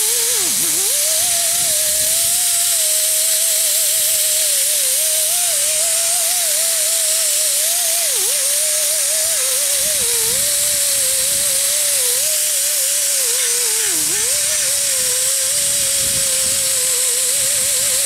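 Small angle grinder with a red Roloc abrasive disc running against the grill shell, stripping off its anodizing. Its whine wavers and sags in pitch as it is pressed into the metal, dropping sharply about half a second in, again around eight seconds and around fourteen seconds, over a steady hiss.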